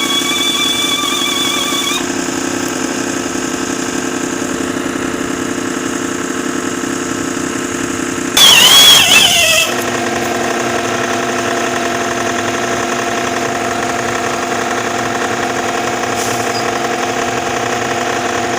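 Engine running steadily at idle. About eight seconds in, a loud hiss with a falling squeal lasts a little over a second.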